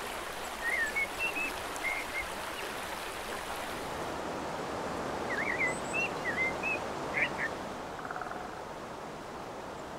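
River water rushing steadily over rocks, with songbirds giving short chirps in two brief spells, about a second in and again past the middle.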